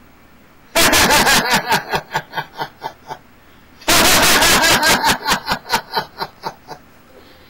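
A man laughing heartily in two loud bouts. Each starts at full force and breaks into a quick run of ha-ha pulses, about four or five a second, that fade away. The first bout begins about a second in and the second about four seconds in.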